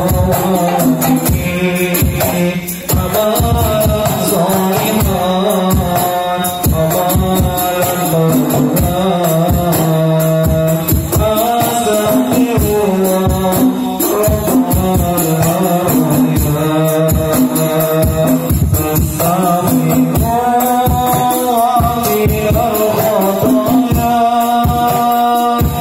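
Hadroh ensemble performing Islamic devotional music: a group of male voices singing a sholawat over steady, driving rebana frame-drum beats.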